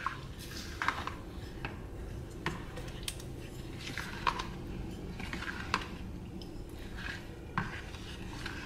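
Steel ladle stirring thick semolina-and-curd idli batter in a plastic bowl, with irregular light clicks and knocks as the ladle strikes the bowl's side.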